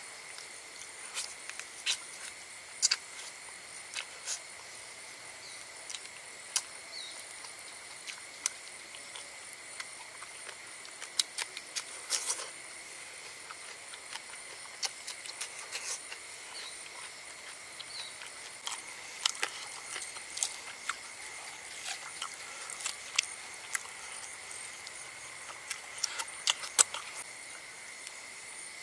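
Steady high insect chorus holding two even pitches, with scattered sharp clicks and crackles of hands tearing apart a roast chicken and of eating.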